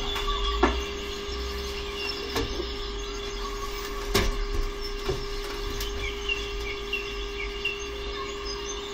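Steady hum with birds chirping outside and four sharp clicks, the loudest about half a second in and about four seconds in, from dumbbells knocking during a set.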